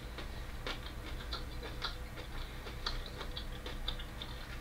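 Close-up chewing of crunchy raw vegetables: a run of small, irregular crunches.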